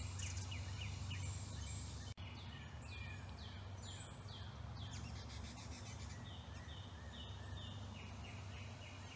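Backyard songbirds calling: series of short, quickly repeated down-slurred notes over a steady low hum. The sound cuts out for an instant about two seconds in, then the birds go on with slower, spaced notes.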